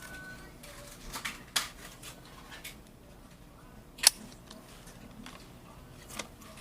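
DDR4 SO-DIMM memory sticks being handled and seated in a laptop's RAM slots: a few short plastic and metal clicks, the sharpest about four seconds in as a module snaps into place.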